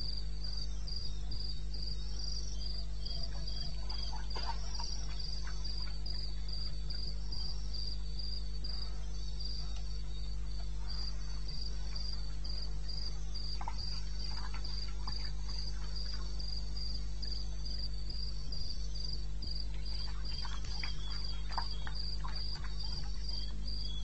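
Crickets calling: one gives a steady series of high chirps, about two a second, and a second, lower-pitched chirping joins near the end. Faint scattered ticks and a steady low hum lie underneath.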